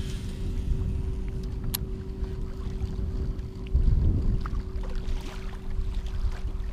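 Wind buffeting the microphone on a fishing kayak, an uneven low rumble with a faint steady hum underneath and a single sharp click about two seconds in.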